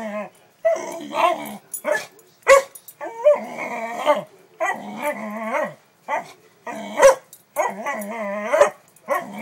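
A dog vocalizes in a string of short, wavering howl-like grumbles with yips mixed in, one call after another. Two sharper, louder calls stand out partway through.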